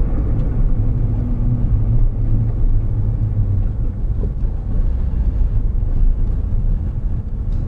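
Car driving along a road, heard from inside the cabin: a steady low rumble of engine and road noise.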